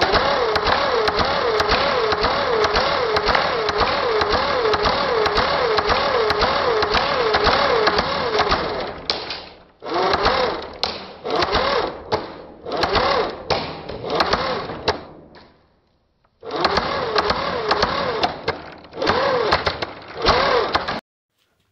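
Airsoft gun firing full-auto: one long continuous burst of about nine seconds, then a string of short bursts, then another burst of about four seconds that cuts off shortly before the end.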